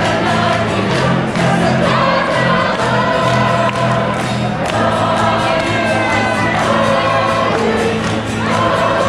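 A choir singing with instrumental accompaniment, its voices over steady low bass notes.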